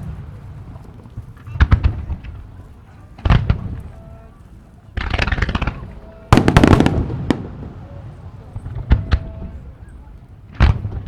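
Aerial fireworks shells bursting overhead: six or so sharp booms, several with crackling tails, the loudest and longest cluster a little past halfway, with rumbling echo between bursts.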